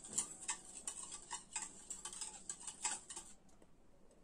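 Wire balloon whisk beating in a stainless steel bowl, its wires clicking against the metal about four times a second, stopping a little past three seconds in.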